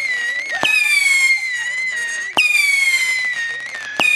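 Whistling ground firework going off: a shrill whistle that slides slowly down in pitch, then restarts with a sharp crack and a jump back up, three times about a second and a half apart.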